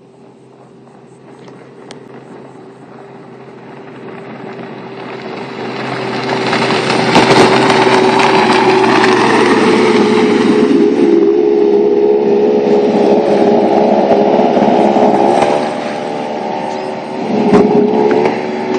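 Yamaha 200 HPDI direct-injection two-stroke V6 outboard running at high speed on a flats boat. The engine grows louder as the boat approaches, is loudest with a rush of spray as it passes close by about seven seconds in, and keeps running as it pulls away.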